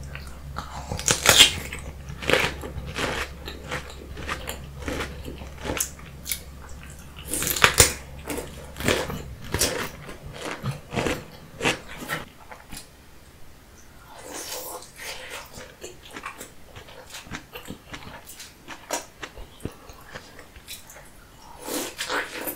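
Loud crisp crunches of bites into a whole raw cucumber, the loudest in the first eight seconds, followed by close-miked wet chewing and mouth sounds of eating sauce-covered king crab.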